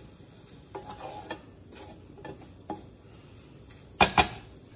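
Wooden spatula stirring and scraping an egg and vegetable scramble in a nonstick frying pan: a few soft scrapes and taps, then two loud sharp knocks about four seconds in.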